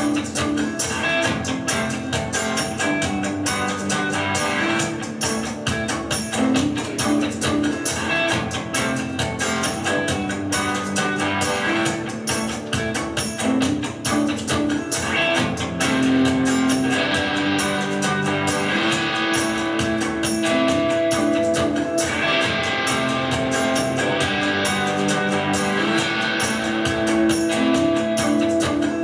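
Live rock music led by a Stratocaster-style electric guitar played through an amplifier, an instrumental passage with busy picked lines. It gets louder about halfway through.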